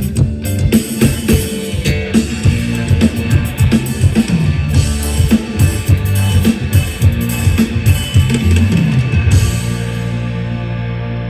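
A mor lam band playing over a large PA sound system during a soundcheck: a drum kit with kick drum keeps a busy beat over bass and guitar. Near the end the drums drop out, leaving a held bass note.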